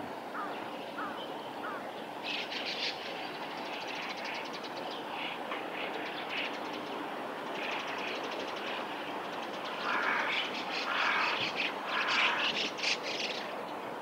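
Small birds chirping and trilling in repeated bursts, loudest near the end, over a steady rumble of distant traffic.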